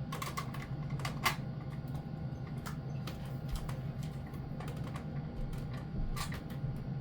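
Irregular light clicks and taps of a fire alarm horn strobe being handled and set up, a louder click about a second in and a few more near the end, over a steady low hum.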